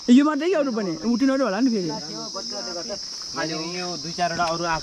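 Steady high-pitched insect chorus, with people talking loudly over it for the first couple of seconds and again near the end.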